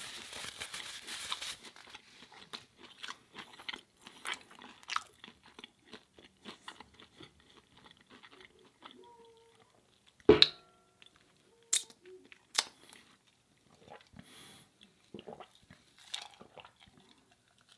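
Close-miked chewing and crunching of food, loudest and densest in the first second or so, then softer chewing with wet mouth clicks. About ten seconds in comes one sharp knock of something hard, ringing briefly, followed by two sharper clicks.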